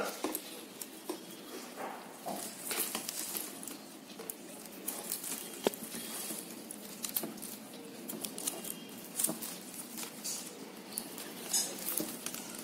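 Yellow plastic weaving wire rustling and clicking as strands are threaded, rubbed against each other and pulled tight into a knot, in many small irregular clicks and scrapes.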